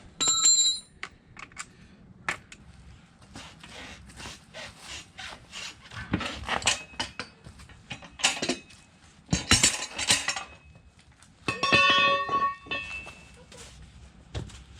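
Steel tools and parts of a manual tire changer clanking and scraping as they are handled. There are two ringing metal strikes, one near the start and a longer one about eleven and a half seconds in.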